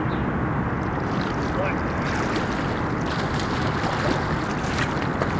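A hooked catfish splashing and thrashing at the surface close to the bank as it is reeled in, with many short splashes from about a second in. Under it runs a steady rushing background noise.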